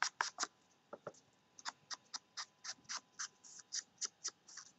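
A round ink blending tool dabbed repeatedly against the edge of a piece of paper to ink it, giving a quick string of soft papery taps about four a second, with a short pause about a second in.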